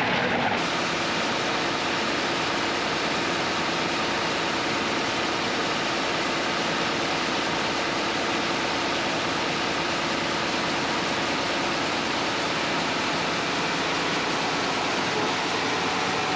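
Steady engine drone and ventilation-fan rush of a running farm harvest machine, heard from inside its cab.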